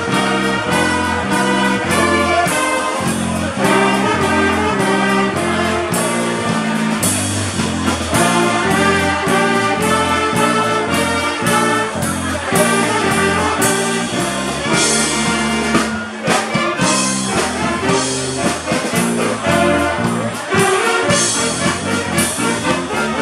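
Wind band playing a march live: brass and saxophones over a bass that steps on every beat, with drum hits.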